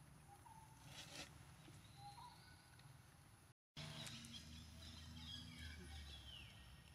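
Near silence outdoors, with a few faint, short high chirping calls, some falling in pitch. The sound cuts out for a moment about halfway through.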